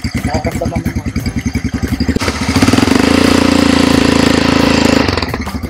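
Automatic ATV's engine idling with an even putter, then revved up about two seconds in as the quad pulls forward. It holds a steady higher note for about three seconds, then drops back to idle near the end.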